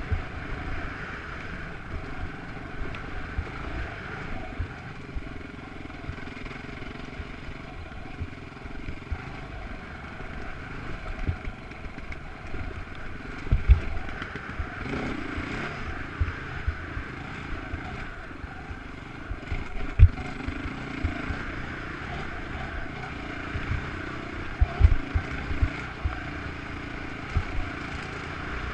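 Off-road motorcycle engine running steadily under way on a rough dirt trail, with scattered sharp thumps, the loudest about halfway through and a few more near the end.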